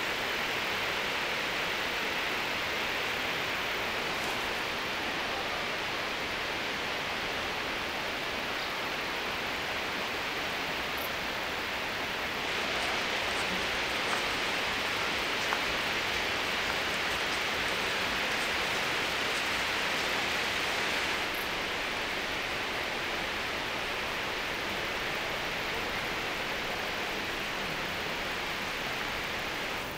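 Steady outdoor hiss, a rustling noise like wind or water, with no engine tone in it. It grows louder for several seconds in the middle.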